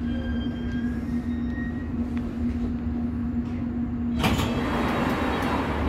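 London Underground District line train running: a steady low rumble with a constant hum. About four seconds in the hum drops away and a loud rushing hiss takes over.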